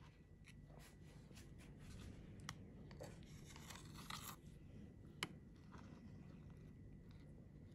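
Faint clicks and scrapes of a kitchen knife slicing raw abalone thinly against a wooden cutting board, with a scratchy run of strokes around four seconds in and one sharper tap about five seconds in.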